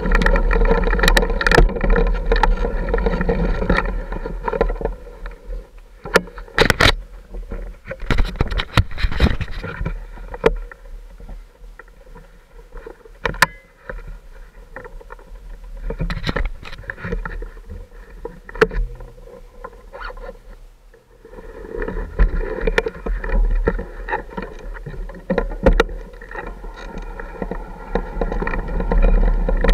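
Off-road motorcycle engine pulling along a rough, rocky trail. It eases off to a low, slow putter for most of the middle, then pulls strongly again about twenty seconds in, with scattered knocks and clatters as the bike rides over rough ground.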